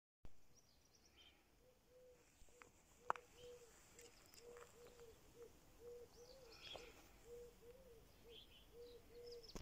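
Faint birdsong: small birds chirping now and then over a low arched note repeated about twice a second. A single sharp click comes about three seconds in.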